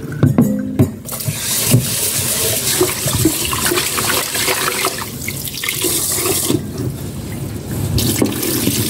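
Tap water running into a rice cooker's inner pot in a stainless steel sink while rice is swished and rinsed by hand, and the cloudy rinse water is poured off into the sink. A few knocks of the pot against the sink come in the first couple of seconds.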